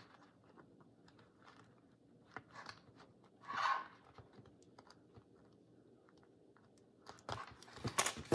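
Faint rustling and light clicks of paper and thread being handled on a tabletop, with a brief swish a few seconds in and a louder run of rustles and taps near the end.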